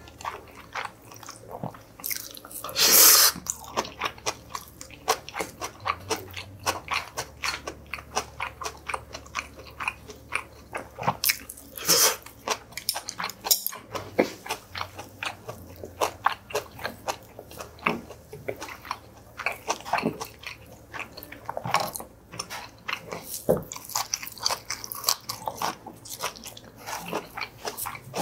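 A person chewing and crunching Korean spring vegetable side dishes (namul and blanched greens), with many short crunches all through and one louder burst about three seconds in.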